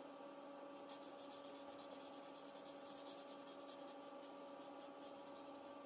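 Faint scratching of a marker pen on a paper card, quick back-and-forth strokes colouring in a small square, starting about a second in and tailing off after the middle, with a few more strokes near the end. A faint steady hum lies underneath.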